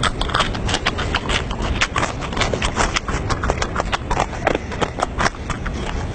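Person chewing loudly with the mouth open: a fast, irregular run of wet smacking clicks, several a second.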